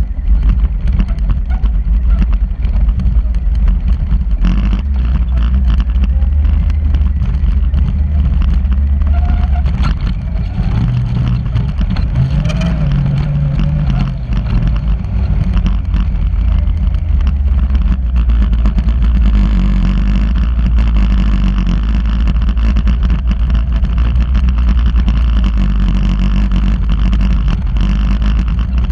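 A vehicle engine running steadily with a deep, continuous rumble as it drives along a dirt road. Its note climbs briefly about halfway through, then settles again.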